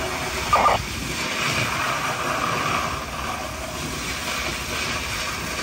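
Steady engine drone, with a short, loud burst of sound just under a second in.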